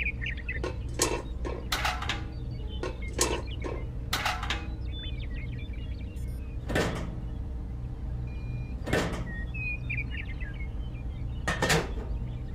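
Irregular sharp clicks and knocks of small plastic and metal toy parts being handled and set in place, about one every second or so, over a steady low hum.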